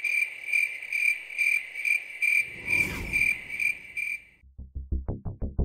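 A cricket chirping steadily, about two chirps a second, with a short swish near the middle. The chirping stops about four and a half seconds in, and electronic music with a fast pulsing low beat starts.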